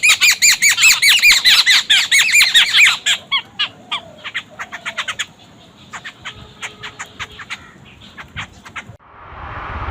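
Birds calling in a fast run of short, high, arched notes, several a second. The calls are loud for about three seconds, then fainter and sparser. A rising rushing noise comes in near the end.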